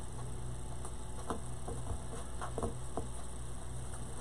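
Hands working a pipe cleaner through a punched hole in a metal craft sign, making a few light, scattered ticks and small handling rustles over a low steady hum.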